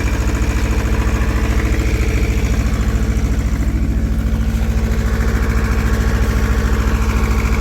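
Shibaura SD1800 compact tractor's small diesel engine running steadily with an even, rapid low chug while pulling a plow through long grass.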